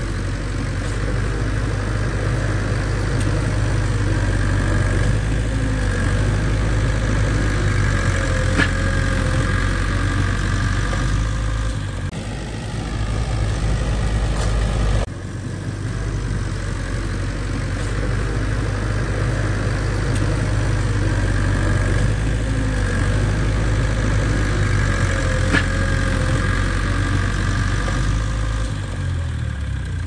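Bulldozer's diesel engine running steadily and loudly, with an abrupt jump in the sound about halfway through.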